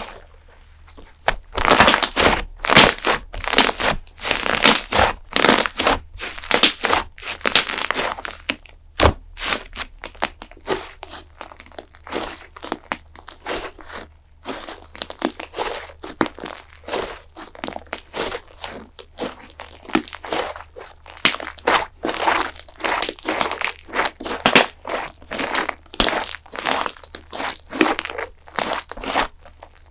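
Fluffy slime being squeezed and stretched by hand, giving a dense, continuous run of sharp crackling and popping sounds that starts about a second and a half in.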